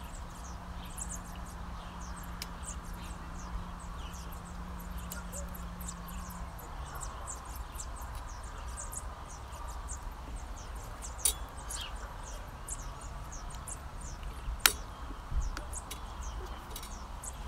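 Birds chirping, with a faint steady low hum that drops in pitch about six seconds in. Two sharp clicks, one about 11 seconds in and a louder one near 15 seconds, as a plastic wheel is fitted onto the shredder's metal frame.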